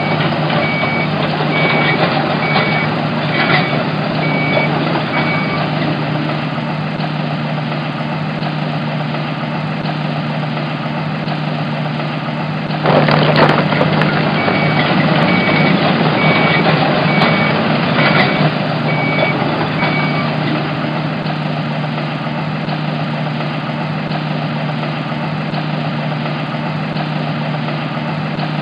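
Video-game sound effects of a construction excavator: a steady engine hum with a high reversing beep sounding in two runs of several seconds each, and a louder rush of noise about 13 seconds in.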